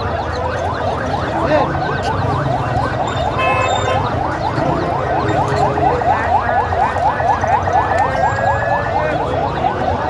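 Dense chorus of baby chicks peeping continuously: many quick, falling peeps overlapping, from crates packed with hundreds of chicks.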